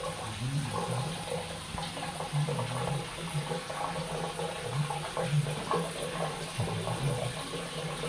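Water spraying from a handheld LED shower head and splashing down: a steady rush with uneven splatter.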